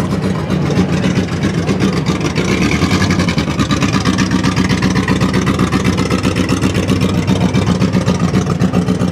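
Engines of compact demolition derby pickup trucks running loud and steady as the trucks drive slowly past close by, with a fast pulsing rumble.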